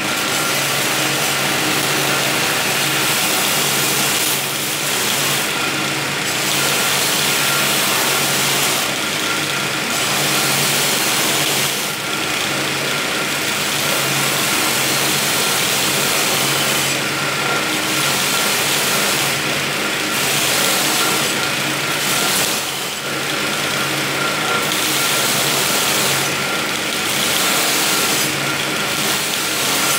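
Homemade belt sander driven by a sewing-machine motor, running with a steel knife blade being ground against the abrasive belt. It starts abruptly. Under a steady motor hum, the grinding hiss swells and eases every few seconds as the blade is pressed and passed along the belt.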